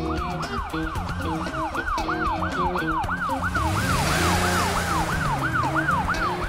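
Ambulance siren sound effect in a fast rising-and-falling yelp, about three cycles a second, over background music. A hiss swells and fades about four seconds in, and the siren cuts off at the end.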